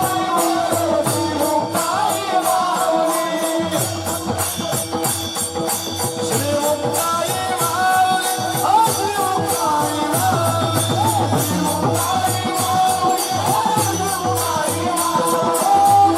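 Marathi kirtan music: mridang drumming with small hand cymbals jingling in a steady fast beat, under held tones and a wavering melody line with no words.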